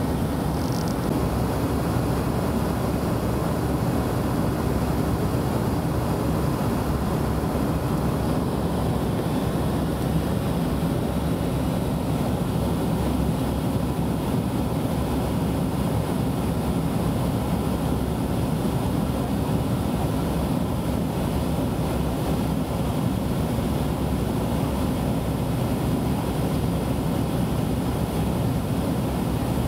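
Steady in-flight cabin noise of a Boeing 707-329C: the even drone of its Pratt & Whitney JT3D turbofans mixed with airflow rush, heavy in the low range and unchanging throughout.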